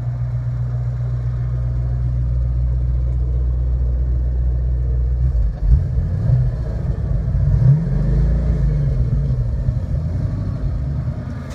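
1966 Mustang's 289 small-block V8, breathing through dual stainless exhaust with an X-pipe, idling steadily. It is blipped briefly about five and a half seconds in, then revved up and back down to idle about eight seconds in.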